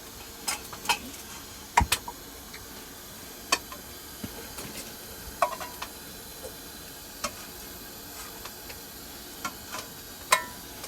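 Broccoli sizzling faintly in a frying pan on a wood stove while it is stirred, with scattered clicks and knocks of a utensil against the pan and a ringing metal clink near the end.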